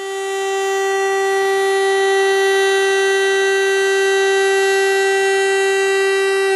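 Fire alarm siren sounding a loud, steady wail on one held pitch that swells over the first couple of seconds. It is the siren alarm calling out the volunteer fire brigade.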